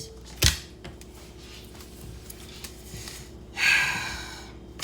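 A short sharp click, then about three seconds later a person's breathy exhale lasting under a second.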